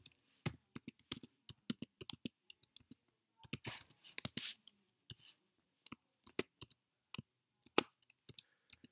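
Typing on a computer keyboard: irregular keystrokes as a username and then a password are entered.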